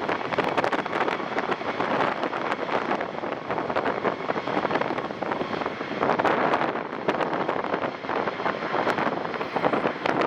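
Steady rushing roar of a jet airliner's engines, heard through gusts of wind buffeting the microphone.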